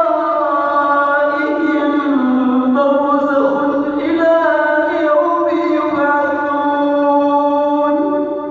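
A man's voice reciting the Quran in melodic tajweed style. It is one long phrase of held notes that move slowly up and down in pitch, fading away near the end.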